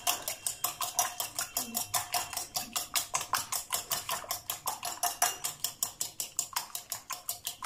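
Fork beating eggs in a glass bowl: quick, even clicks of the fork against the glass, about six or seven a second.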